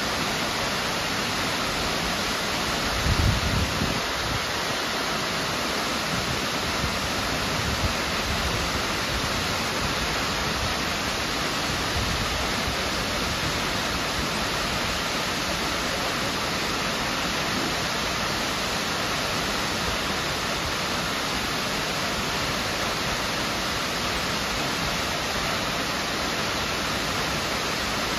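Miners Falls, a tall waterfall, pouring down a cliff into the pool below: a steady, even rush of falling water. A brief low rumble comes about three seconds in.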